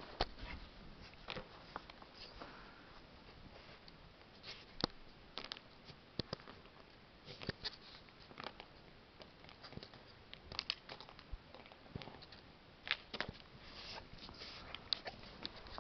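Irregular soft crunching and crackling of deep snow being pushed through and trodden, with scattered sharp clicks.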